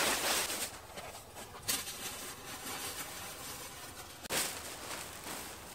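Rustling of nylon sleeping gear being handled and shaken out on a crinkly reflective ground sheet. It is loudest at the start and again in a short burst about four seconds in.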